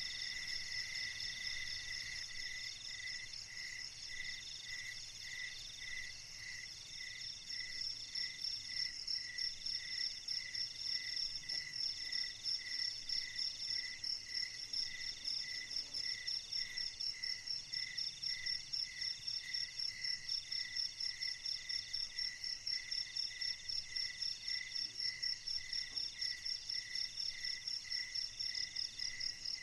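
Chorus of night insects, several calling at once at different pitches, each a steady pulsing trill. The rhythmic beat grows stronger about eight seconds in.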